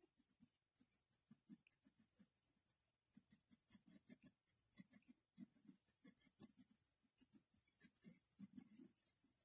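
Faint scratching of a mechanical pencil sketching on paper in short, quick strokes, several a second.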